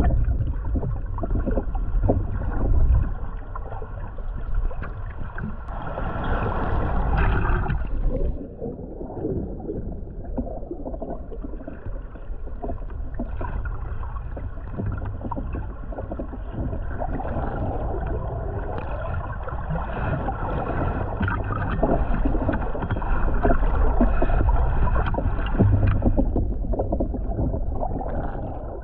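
Underwater lake ambience: a low rumble of moving water with dense crackling and bubbling and a steady droning hum, swelling briefly a few seconds in and easing off near the end.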